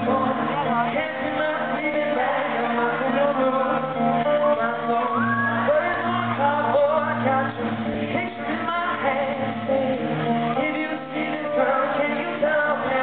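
Live pop-rock band playing with singing, heard from the audience in a large hall.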